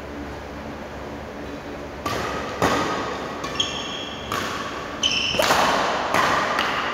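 Badminton rally: rackets smacking the shuttlecock several times, about a second apart, starting about two seconds in, with short squeaks of players' shoes on the court floor.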